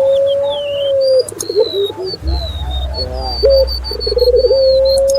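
Doves cooing: a quick stuttering run of coos ending in one long, level held coo, heard twice. A small bird's thin high whistled chirps run above them, and a low rumble comes in about two seconds in.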